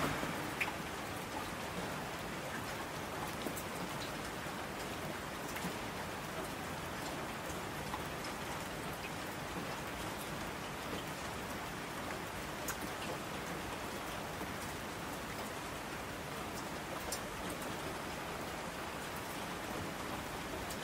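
Steady rain falling, with scattered single drops ticking out above the even hiss.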